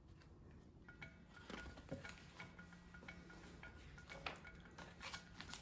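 Faint rustles and soft taps of a paperback picture book being opened and its pages turned, a few short scattered clicks over a faint low hum.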